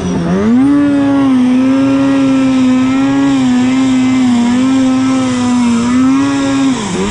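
Arctic Cat snowmobile engine running at high revs under throttle. The pitch dips briefly just after the start and again near the end, each time climbing straight back up.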